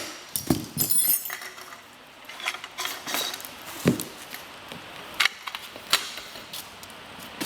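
Handling noise: scattered light clinks and knocks, a few sharper metallic ticks among them, as tools and parts are moved about.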